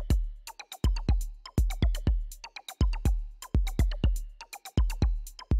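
Background music with a steady electronic beat: deep kick drums and sharp percussive hits with short bright tones.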